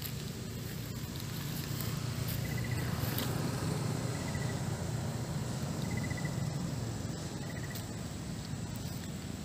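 Outdoor ambience: a steady low rumble, with a short high trill repeating every second and a half or two.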